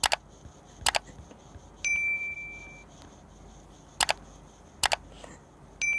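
Bell-like ding sound effect: two sharp clicks, then about a second later a bright ding that rings on one pitch for about a second. The click-click-ding pattern repeats about four seconds later.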